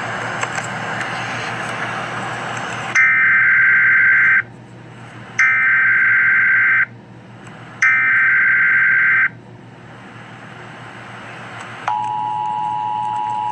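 Emergency Alert System tones: a few seconds of static hiss, then the three screeching SAME digital header bursts, each about a second and a half long with short gaps. Near the end the steady two-tone EAS attention signal begins.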